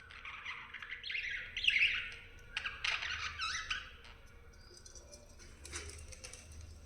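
Budgerigars chattering and warbling, busiest and loudest in the first few seconds, then softer with scattered clicks.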